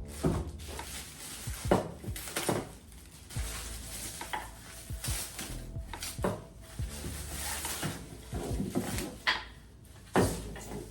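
Kitchen clatter: dishes and utensils knocking and scraping, with repeated sharp knocks throughout, over faint background music.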